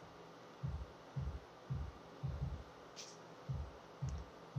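Repeated low, dull thumps, roughly two a second, with a couple of faint clicks in between.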